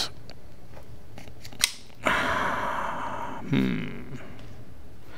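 Hands working the slide of a Rock Island Armory 1911 longslide pistol that is still packed with factory grease: a sharp metal click, then about a second of scraping as the slide is drawn back to clear the chamber.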